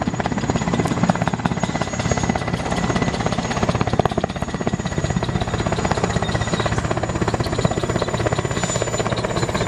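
Helicopter sound effect: a steady, fast chopping of rotor blades.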